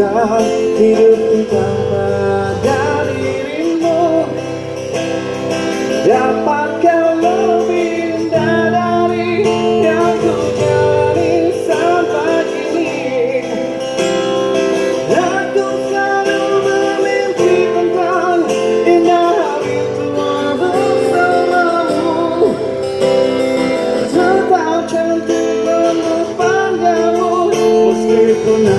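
Live busker band playing a pop ballad on acoustic guitar, with a wavering sung melody over steady chords.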